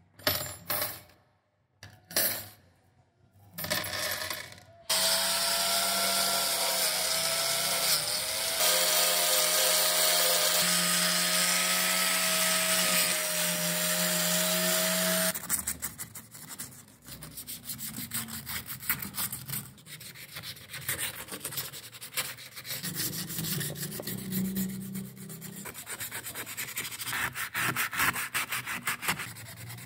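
A bundle of steel wheel spokes clinking in a few short bursts, then an angle grinder with a wire cup brush running with a wavering whine for about ten seconds as it scrubs rust off a steel swingarm. From about the middle on, sandpaper rubbing back and forth over the metal by hand, a rapid scratchy sound.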